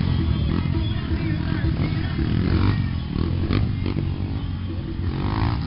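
A car sound system playing very loud, heavy, distorted bass, with a few sharp knocks and voices mixed in.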